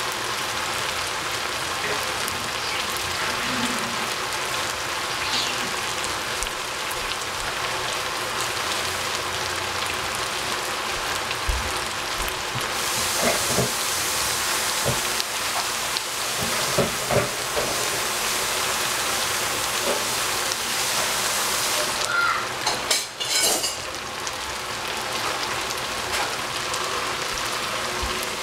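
Julienned potato and celery sizzling steadily in a stainless steel pot on the stove. The hiss grows brighter for several seconds in the middle, and a few light knocks come through.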